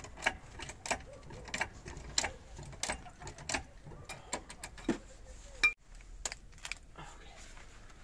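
Hydraulic trolley jack being pumped by its long handle, a sharp click with each stroke about every two-thirds of a second, as it lifts a car. A sharp knock comes about two-thirds of the way through, then a couple of lighter clicks.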